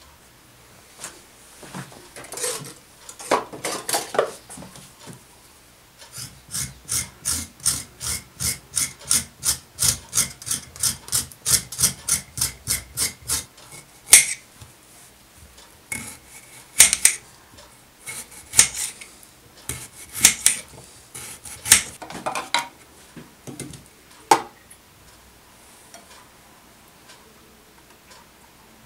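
A kitchen knife scraping the skin off a carrot in quick, even rasping strokes, about three a second, over a plate. Scattered sharp clicks and knocks come before and after the run of strokes.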